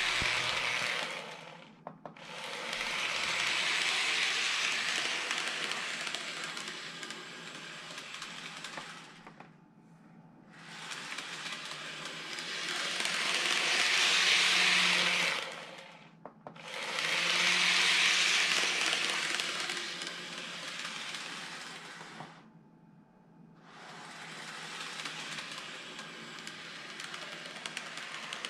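Greenmax N-gauge model train of the Shizuoka Railway A3000 two-car set, running on the layout's track. Its motor and wheels make a whirring hiss that swells as the train passes close and fades as it moves away, several times over, dropping almost away briefly between passes.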